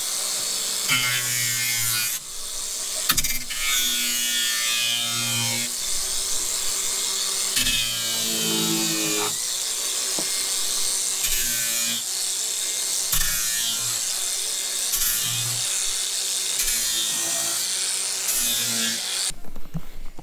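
Angle grinder with a flap disc grinding across primed pine shiplap to distress the finish, its pitch shifting as the disc is pressed into and lifted off the wood. It stops abruptly about a second before the end.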